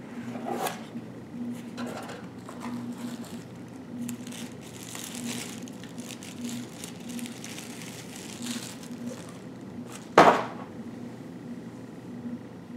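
Crinkling plastic bag and handling of a cardboard box while a small Bluetooth speaker is unpacked, with one sharp knock about ten seconds in. A faint low hum runs underneath.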